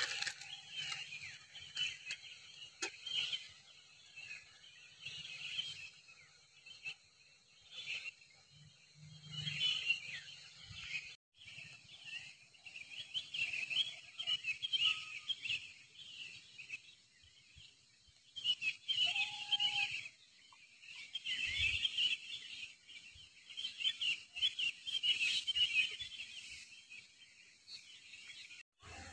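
Birds chirping and calling in quick, overlapping bursts that come and go.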